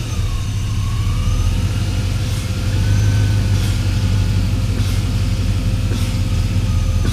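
Chevrolet Silverado pickup engine idling steadily under the open hood, with a faint whine that wavers slightly in pitch.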